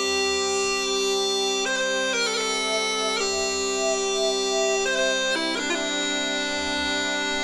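Bagpipe music: a melody of changing notes played over a steady drone.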